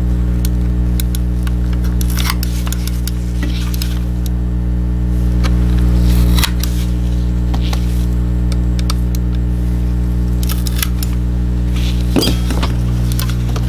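Small clicks and scrapes of a thin metal pick working at the plastic underside of a Logitech G Pro mouse as it is opened, with a cluster of them near the end, over a steady low hum that drops a little about halfway through.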